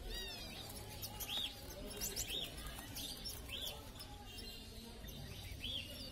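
Small caged finches chirping: short arched call notes about once a second, with a quick run of falling notes right at the start, over a low steady background rumble.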